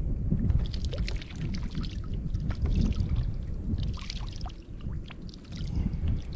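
Water splashing and trickling in short irregular spatters around a kayak, over a steady low rumble of wind on the microphone.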